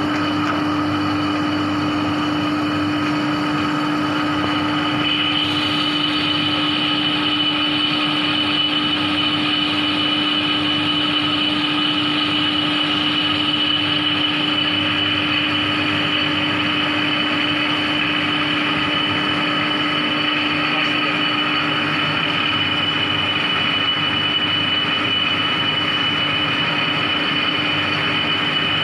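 Herbert No. 7 capstan lathe with pre-optive headstock running under power: a steady mechanical hum with a gear whine over it. A higher whine joins about five seconds in.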